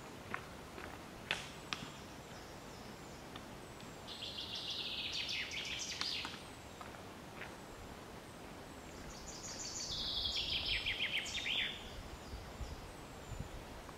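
A songbird sings two fast, trilling phrases, one about four seconds in and another about nine seconds in, each lasting about two seconds and dropping in pitch at the end. At the start, a few footsteps crunch on the leaf-covered trail and fade away.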